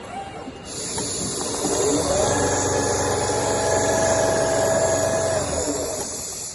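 Computerised CNC leather sewing machine stitching: its drive speeds up about two seconds in, runs at a steady pitch with a high hiss, then slows down near the end.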